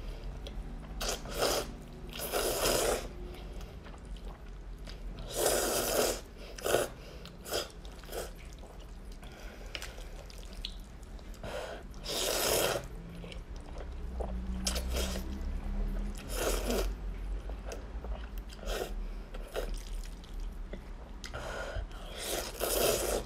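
A person loudly slurping mouthfuls of thick, saucy instant noodles. The slurps come every few seconds, each lasting up to a second, with quieter wet mouth noises between them.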